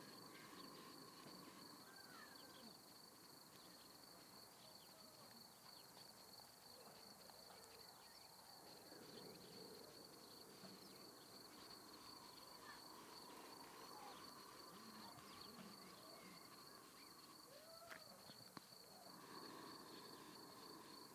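Near silence, with a faint, steady, high-pitched cricket trill in the background.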